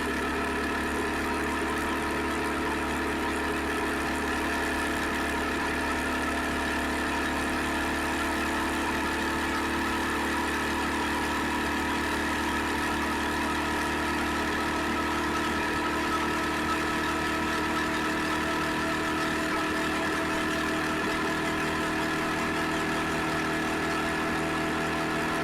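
Suzuki SV650X motorcycle's V-twin engine running steadily at a nearly constant speed.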